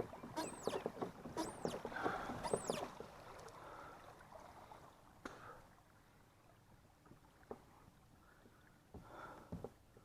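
Kayak on the water: knocks and water sounds, with a high squeak repeated about once a second during the first three seconds. After that it goes quieter, with only a few scattered clicks.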